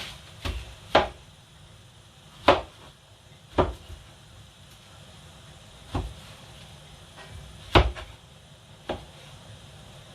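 Kitchenware being handled: about seven sharp knocks at irregular intervals.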